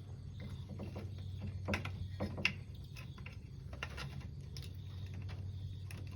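Scattered small clicks and plastic rattles of hands working a wire plug loose from a power supply connector, over a steady low hum.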